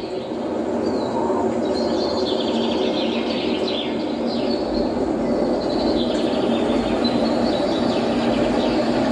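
Birds chirping over a steady rumbling noise.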